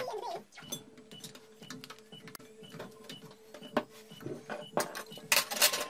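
Handling noises: clicks and knocks as rubber gas hoses are handled, then paper tissue rustling and rubbing on a wooden bench near the end. Under them runs a faint steady tone with short high pips about twice a second.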